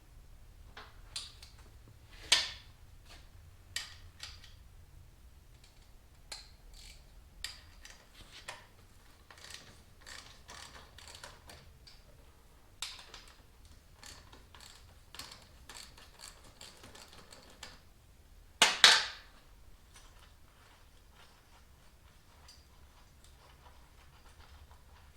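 Scattered clicks and knocks of hand tools on a stuck motorcycle part. There is a sharp knock about two seconds in and a louder double knock about three-quarters of the way through.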